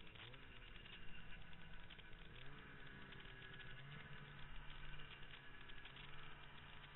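Snowmobile engine running under the rider, its pitch rising in short revs just after the start and again a couple of seconds in, then holding steady for a few seconds.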